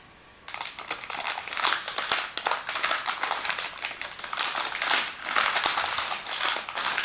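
Plastic packaging crinkling and rustling as the contents of a wireless-earbuds box are handled and unpacked. It comes in many quick, irregular bursts, starting about half a second in after a brief quiet.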